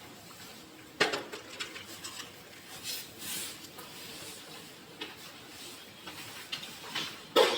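Scattered knocks and light clatter of objects being handled, with a sharp knock about a second in and a louder one near the end.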